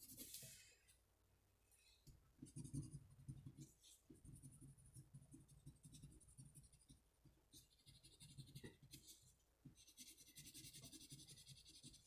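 Faint scratching of a construction paper crayon colouring on construction paper, rapid back-and-forth strokes in runs of a few seconds with short pauses between.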